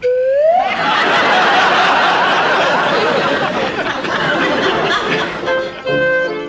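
A single rising cry at the start, then an audience laughing loudly for about five seconds. Music with held notes comes in near the end as the laughter dies away.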